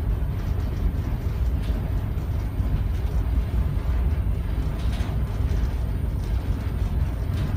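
Towboat's diesel engines running with a steady low rumble, heard inside the pilothouse.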